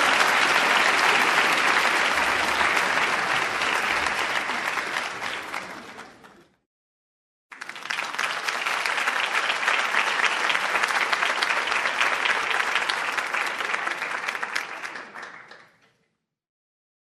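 Audience applause that fades out about six seconds in, then after a second of silence a fresh round of applause starts abruptly and fades away again near the end.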